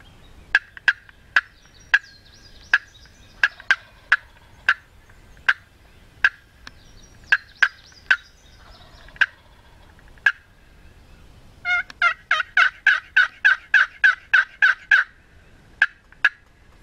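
Wooden turkey box call worked by hand, imitating hen turkey yelps for long-distance calling. Sharp, scratchy single notes spaced out at first, then a fast run of about a dozen yelps at roughly four a second about twelve seconds in, and two more notes near the end.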